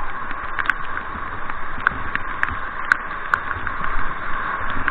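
Whitewater rapids rushing steadily around a raft, with about five sharp ticks scattered through.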